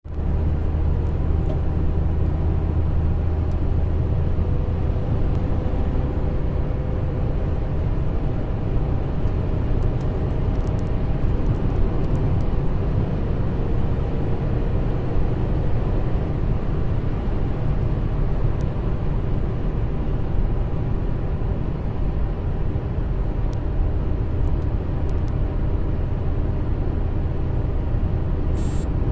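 Steady road noise inside a car cabin at motorway speed: a low rumble of tyres and engine, with a short click near the end.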